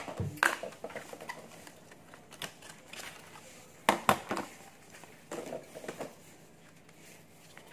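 Scattered hard plastic clicks and knocks from a Dymo handheld label maker and its tape cassette being handled on a countertop, with the sharpest double knock about four seconds in.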